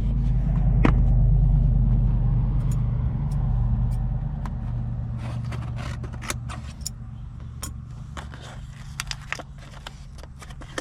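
Low, steady hum of a motor vehicle's engine, swelling in the first couple of seconds and then slowly fading away. Through the second half come scattered light clicks and taps, like small parts being handled.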